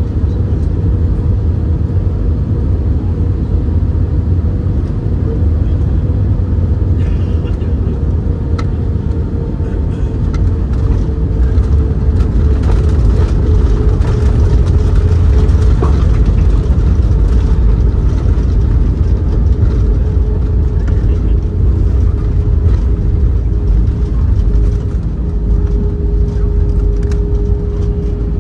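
Cabin noise of an Airbus A319-132 heard from a window seat: a steady deep rumble with an engine hum, from its IAE V2500 turbofans, that swells somewhat a little under halfway through and sags slightly in pitch.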